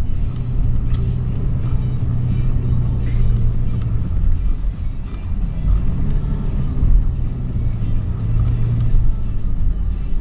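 2013 Toyota 4Runner's 4.0-litre V6 running steadily as the SUV drives over sand, a low drone with a rumble beneath it.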